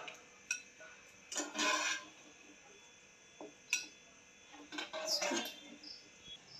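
A few light clinks and knocks of a wire strainer and a steel bowl as parboiled potato fingers are lifted out and drained, with short spells of quiet between them.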